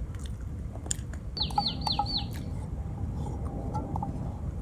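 A wild bird singing a quick run of about five falling whistled notes, about a second and a half in, over a steady low background rumble.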